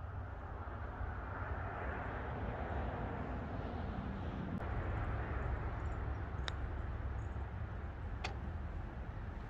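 Distant engine drone that swells over the first few seconds and then eases off, over a low rumble. Two sharp clicks come later, the second as a putter strikes a golf ball.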